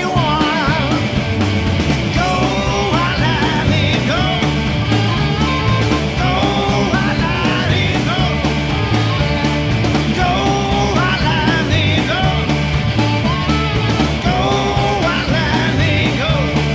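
Rock-and-roll band playing: a lead line of bent, wavering notes over a steady, pulsing bass and drums.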